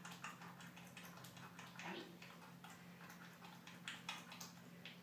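Faint, soft squelching clicks of a dog's ear canal filled with saline being massaged at the base of the ear to loosen debris, over a steady low room hum.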